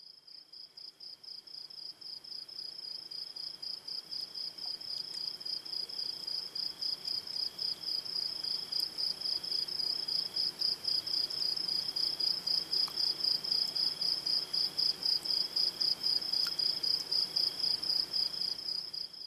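A cricket chirping in a steady run of evenly spaced, high-pitched chirps. It grows louder over the first several seconds and cuts off suddenly at the end.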